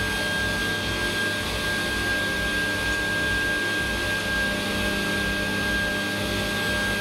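Table saw running freely between cuts, a steady motor and blade whine with no wood being fed through.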